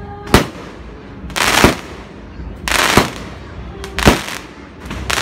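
Aerial fireworks bursting overhead: four loud bangs about a second apart, with bursts of crackling around them.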